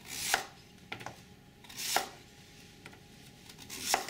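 A knife slicing through peeled raw yuca root and knocking on a plastic cutting board: three cuts about two seconds apart, each swelling to a knock as the blade meets the board, with a couple of light taps in between.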